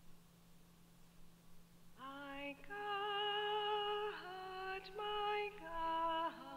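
A woman cantor singing the responsorial psalm solo, starting about two seconds in with a few long held notes. A faint steady electrical hum sits underneath.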